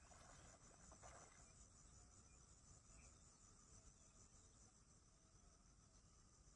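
Faint insect chorus: a steady, finely pulsing high-pitched trill. Two brief soft rustles come at the start and about a second in.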